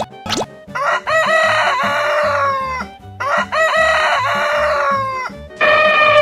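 Rooster crowing twice, each crow about two seconds long, over background music with a steady beat. Near the end a horn-like tone starts, sliding down in pitch.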